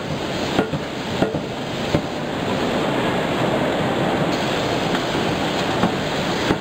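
Forging-line machinery running with a steady, loud roar, and a few light knocks in the first two seconds and again near the end as a hot billet is worked.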